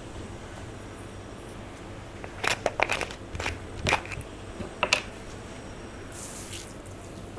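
Clear slime being worked by hand with makeup mixed in, giving a cluster of sharp sticky clicks and crackles a couple of seconds in. A brief hiss follows near the end.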